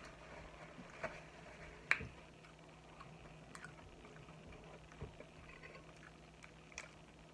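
Faint scattered clicks and crackles of hands pulling apart a large boiled shrimp's shell, with one sharper click about two seconds in.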